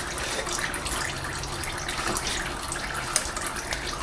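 Engine oil pouring steadily from the open sump drain into a drain pan, with a few faint clicks.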